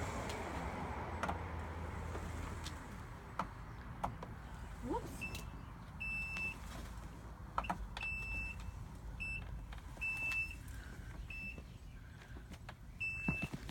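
Orange Vita four-wheel mobility scooter running, its electric drive humming steadily for the first few seconds. From about five seconds in, the scooter gives a string of short, high electronic beeps of uneven length, with a few light clicks.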